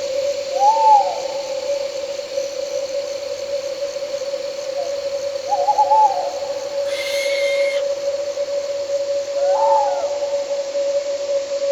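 Owl hooting three times over a steady drone: a short rising-and-falling hoot about a second in, a quavering hoot around six seconds and another near ten seconds. A brief harsh call sounds at about seven seconds.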